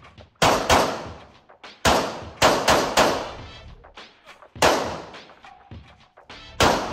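Pistol shots echoing in an indoor range bay: about eight shots in uneven strings, a quick pair, then four shots within about a second, then two single shots about two seconds apart.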